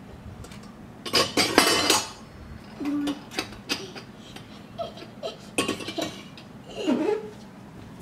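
Miniature stainless steel toy pots, lids and bowls clinking and clattering as they are picked up and set down. The sound comes in several short bursts, and the loudest comes about a second in.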